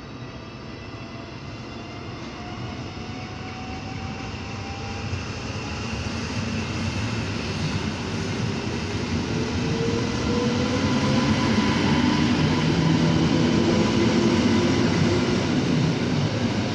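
An EN57AKM electric multiple unit pulling away from the platform, its motors whining as it picks up speed. The whine rises slowly in pitch, and the rumble of the wheels on the rails grows steadily louder as the carriages pass close by.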